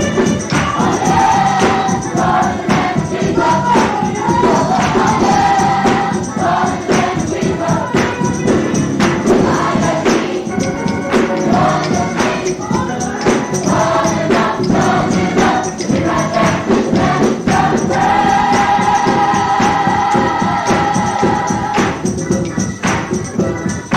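Gospel choir singing with band accompaniment and a steady tambourine beat, holding one long note for several seconds near the end.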